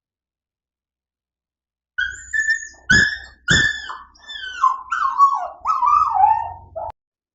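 A dog whining: a run of high-pitched cries that mostly slide downward in pitch, starting about two seconds in and cutting off abruptly shortly before the end. Two sharp clicks come early in the run.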